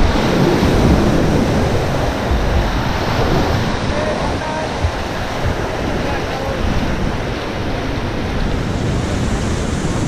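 Rushing whitewater of the Beas river rapids around a raft: a loud, steady roar of water, with wind buffeting the microphone.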